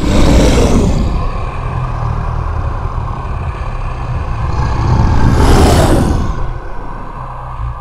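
Monster roar sound effect: a loud, growling roar that falls in pitch over about a second, held by a low rumble, then a second roar swelling about five seconds in.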